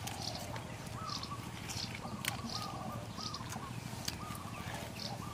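Birds calling: a short note repeated about twice a second, with higher chirps about once a second. Two sharp clicks stand out, the louder one about two seconds in.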